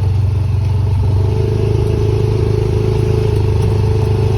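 Honda ATV engine running at a steady speed while driving, an even drone with no change in pace.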